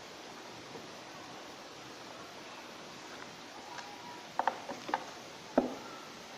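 Steady background hiss, with a quick cluster of sharp clicks about four and a half seconds in and a single louder knock about a second later, from handling a small object or its packaging.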